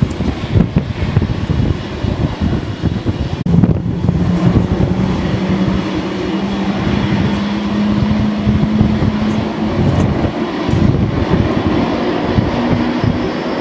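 Boeing 747-400F jet engines running at taxi power, with wind gusting on the microphone. About three and a half seconds in a steady hum comes in and rises slightly in pitch over the next several seconds.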